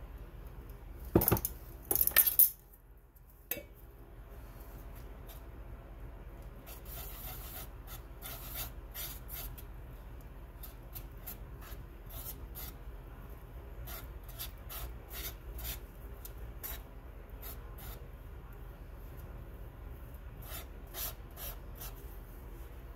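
Metal palette knife scraping and mixing coarse Prussian blue pigment into linseed oil on a paint plate, in a run of short strokes. Near the start there are a few louder clatters of utensils.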